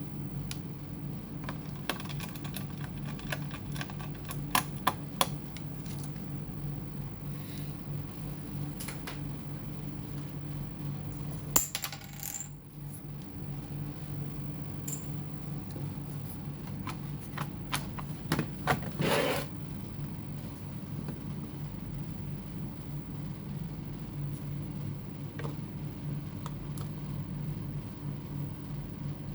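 Small metal screws and laptop parts clinking and clicking against a hard surface. There is a run of light clicks early on, a sharp click about halfway and a short rattling burst near two-thirds through, over a steady low hum.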